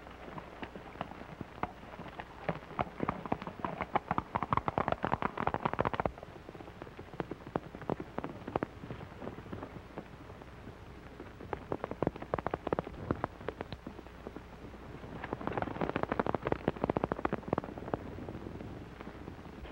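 Galloping horses' hoofbeats, a fast clatter that comes and goes in several stretches and stops abruptly about six seconds in.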